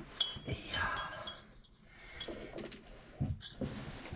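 Scattered knocks and light metallic clinks of tools and parts being handled, with a few ringing clinks in the first second.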